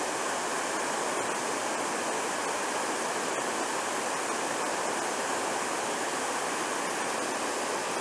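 Small creek waterfall cascading over stepped rock ledges: a steady, even rush of falling water.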